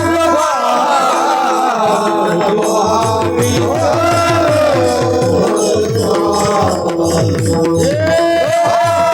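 Devotional kirtan music. A voice sings a gliding melody over steady held tones, and a mridang drum beats a fast, even rhythm underneath.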